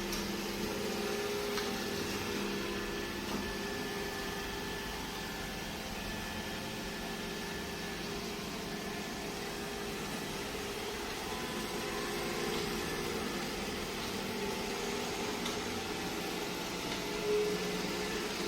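iRobot Roomba j7+ robot vacuum running: a steady motor and fan whir with a low hum. A brief louder knock near the end.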